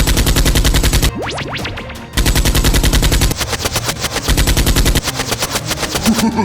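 Rapid automatic gunfire, a dubbed machine-gun sound effect, in three loud bursts of about a second each, with lighter shots in between. A short rising whistle sounds between the first two bursts.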